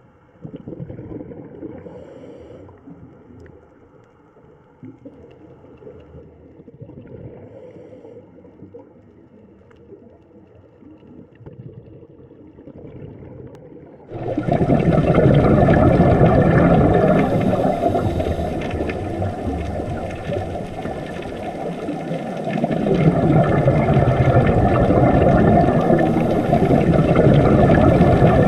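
Underwater recording of scuba divers' exhaled air bubbling and rushing, starting abruptly about halfway through and swelling and easing over several seconds. Before it, a quieter low underwater rumble.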